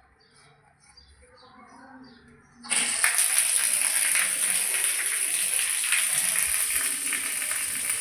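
Water turned on suddenly about two and a half seconds in, running hard from a bathroom tap with a loud, steady hiss. Faint bird chirps before it.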